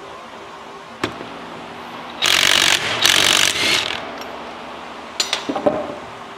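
Yellow DeWalt cordless drill running in two short bursts, about half a second and then a second long, turning an old mower-blade bolt used as a bit to back a threaded piece out of a hydraulic coupler block. A sharp click about a second in and a few light metal clicks near the end.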